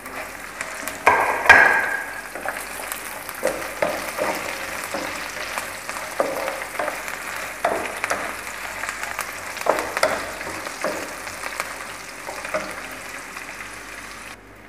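Flour-dusted chicken pieces sizzling in oil in a nonstick frying pan on a low flame, stirred with a wooden spatula that scrapes and knocks against the pan every second or two. The loudest stir comes about a second and a half in.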